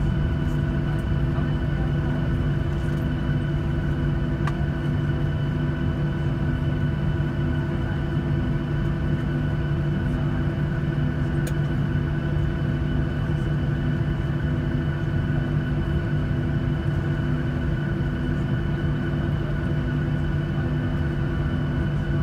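Boeing 737-700's CFM56-7B jet engines at idle thrust during taxi, heard from inside the cabin over the wing: a steady hum and rumble with several steady whining tones above it.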